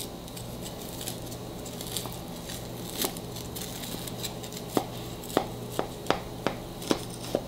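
A clear plastic cake server cutting down through the crisp crumb topping of a banana crumb cake, with scattered crunches and then a run of sharp taps, about two a second, in the second half.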